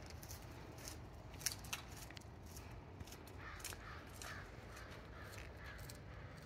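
A bird giving a quick run of short, harsh calls, about seven of them in the second half. A few faint footstep ticks come early on.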